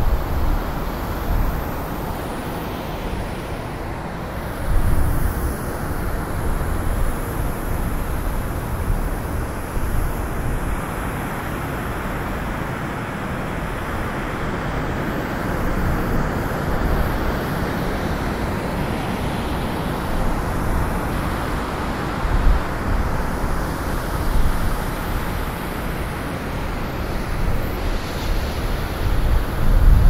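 Snowstorm wind blowing steadily, a rushing noise that rises and falls in gusts, with a few louder low rumbling surges, the strongest near the end.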